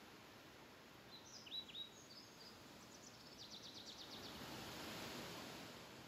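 Faint rustle of wind through tall grass, swelling in a gust about four seconds in. A bird chirps a few short downward notes between one and two and a half seconds in, then gives a quick trill of about ten notes a second just after three seconds.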